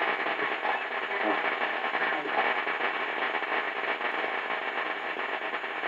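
A 1940 Philco 40-180 console tube radio playing through its loudspeaker: a steady hiss of static with a faint broadcast voice in it.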